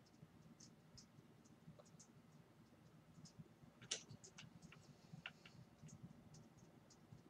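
Near silence: faint room tone with scattered faint clicks, one sharper click about four seconds in followed by a few more.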